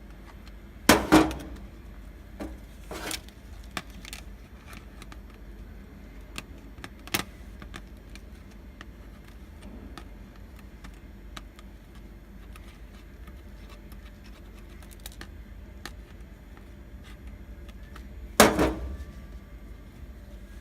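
Scattered small clicks and taps of pliers and small fittings being worked loose on a vending machine's door panel, with two louder knocks, one about a second in and one near the end.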